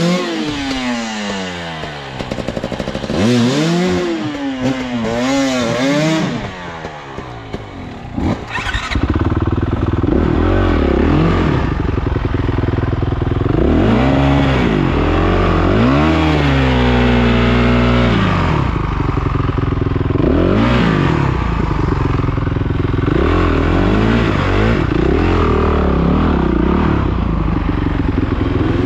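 Dirt bike engine revving up and down again and again as the throttle is worked. It is patchier in the first few seconds, then louder and more continuous from about nine seconds in.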